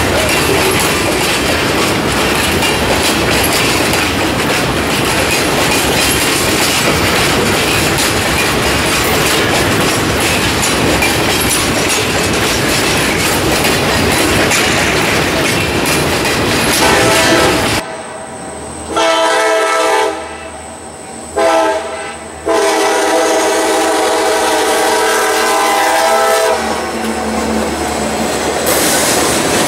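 Freight-car wheels clattering over the rails as a train rolls past close by. After a sudden cut, a locomotive horn sounds several blasts, the last held about four seconds, and then the train rolls by more quietly.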